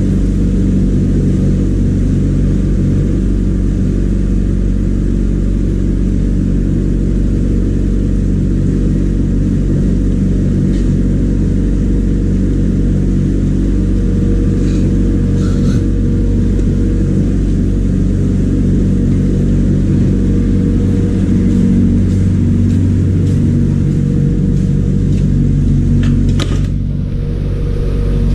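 An electric motor running with a steady low hum.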